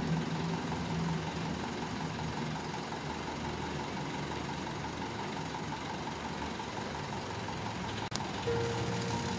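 Mitsubishi Fuso truck's diesel engine running steadily while its truck-mounted hydraulic knuckle-boom crane is operated, with a single click about eight seconds in.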